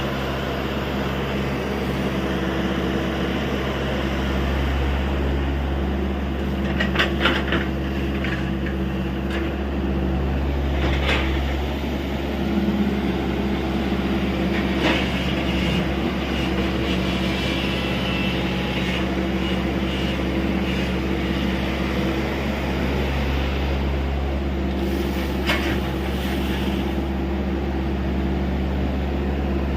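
TATA Hitachi EX70 excavator's diesel engine running steadily while digging, with several short knocks scattered through.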